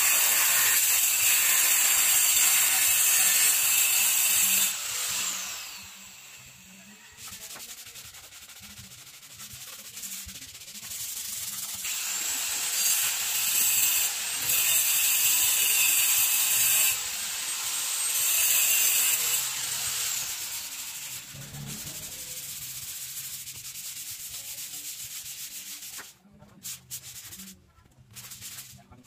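Hand sanding of a putty-spotted wall with a sanding block: a scratchy, hissing rub. It is loudest in the first five seconds and again through the middle, with quieter rubbing in between and a few light knocks near the end.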